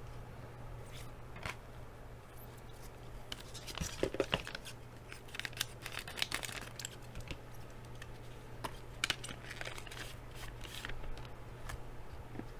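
Foil trading card pack being torn open and its wrapper crinkled by hand, in irregular crackling rustles that come in clusters, over a steady low electrical hum.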